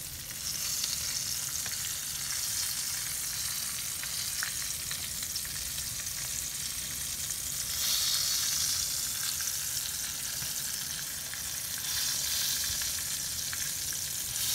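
Battered bowfin pieces deep-frying in hot oil in a pan, a steady sizzle that swells louder a few times.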